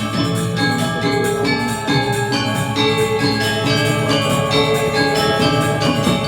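Balinese gamelan music: bronze metallophones ringing in quickly changing notes over a dense low accompaniment.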